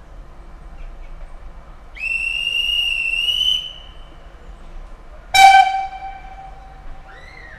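Steam locomotive whistle blowing a high, slightly rising note for about a second and a half. A couple of seconds later a sudden, louder and lower ringing tone sounds and fades over about a second and a half.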